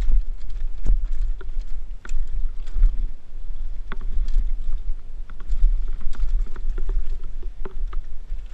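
Mountain bike descending a rocky dirt trail, heard from a helmet-mounted camera: a steady low rumble of wind and riding noise on the microphone, with frequent sharp clicks and rattling knocks as the bike goes over rocks and ruts.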